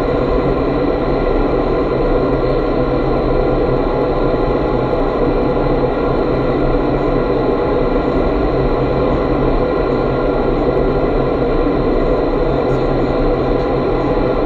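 iFLY indoor vertical wind tunnel running at flying speed: a loud, steady rush of air through the flight chamber, with several steady fan tones humming under it.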